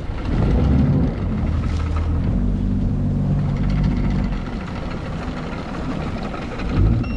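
A boat's engine running with a low, steady hum as it works to push the grounded boat off a sandbar. The hum is strongest in the first half and eases off later.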